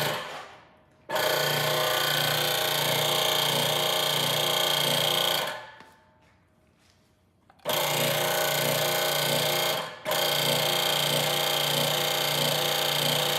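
Hydraulic pump of a home-built 60-ton press brake running in stretches of a few seconds, shutting off and restarting as the ram is worked to bend a small strip of steel. It has a steady pulsing hum with a hiss on top, stops briefly about half a second in, goes quiet for about two seconds in the middle, and dips for a moment around ten seconds.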